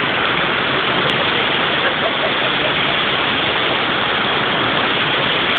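Waterfall: falling water making a steady, loud, unbroken rush.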